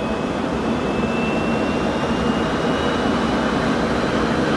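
Jet aircraft engine noise in flight: a steady rush with a faint high whine that slowly rises in pitch.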